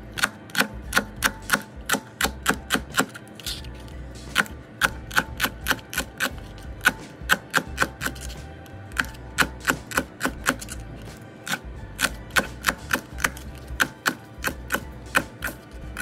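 Chef's knife chopping celery stalks on a plastic cutting board: a run of sharp knocks about three a second, broken by a few short pauses.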